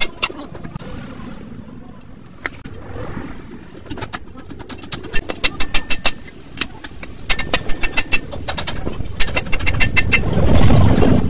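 Quick runs of ringing hammer blows on steel rivets, as a new friction lining is riveted onto a truck drum-brake shoe held on a post anvil; the blows start about five seconds in and come in bursts of several strikes each. A low rumble swells near the end.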